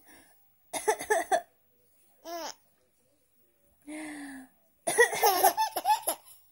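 A woman coughing and a baby laughing in reply, in several short bursts: a loud burst about a second in, a brief rising squeal, and a longer run of laughter near the end.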